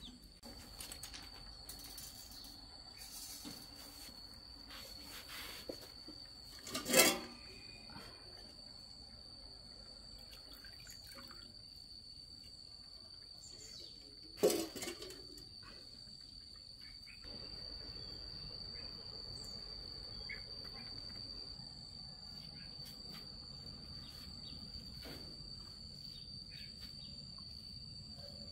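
Insects, such as crickets, chirping in a steady high-pitched drone. Two short, loud, sharp sounds of unclear source cut in, one about 7 seconds in and one about 14 seconds in.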